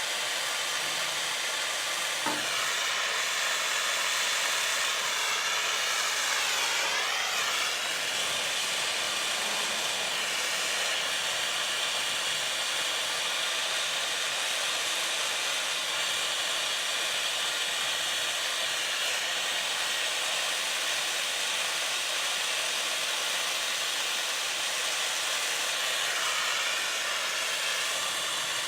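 Gas torch flame hissing steadily as it heats solder on a leaking radiator's core, with a brief wavering in the hiss a few seconds in.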